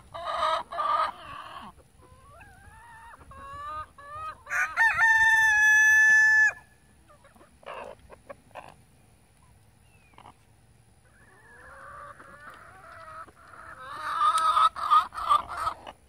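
Chickens squawking and clucking, with a rooster crowing once a few seconds in: a stuttering rise into a long held note, the loudest sound. The squawking builds up again near the end.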